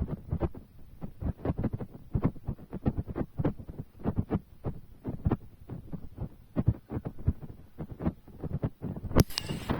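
A quick, uneven series of dull low thumps, about three or four a second, with a sudden rise in hiss near the end.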